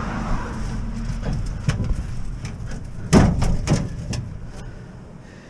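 Metal scrap being shifted in a car's cargo area: a few knocks, then a louder burst of clanking and scraping about three seconds in, over a steady low rumble of road noise.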